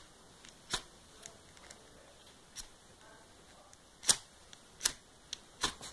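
Steel striker scraped hard down a ferro-rod fire starter (a survival flint bar), about five sharp scrapes at uneven intervals, each throwing sparks to light tinder.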